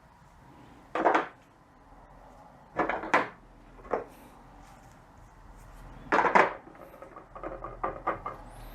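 Hand tools and metal parts being picked up and set down on a workbench: a handful of separate clanks and clatters, the loudest a couple of knocks about six seconds in, with lighter rattling near the end.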